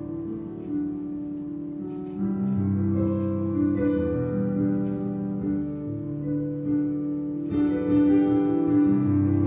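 Slow instrumental music of held, overlapping notes and chords, with louder new chords entering about two seconds in and again near the end.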